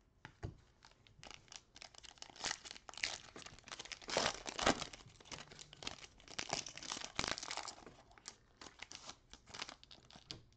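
A Panini Select football-card foil pack being crinkled and torn open and its cards slid out: a dense run of irregular crackles, loudest about four to five seconds in.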